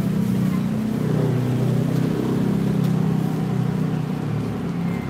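A steady, engine-like motor drone with a low pitched hum that wavers slightly.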